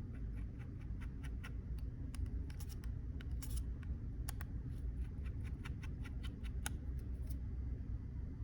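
Small irregular clicks and scratches of a precision screwdriver turning out the two pentalobe security screws at the bottom of an iPhone 11 Pro Max, over a steady low hum.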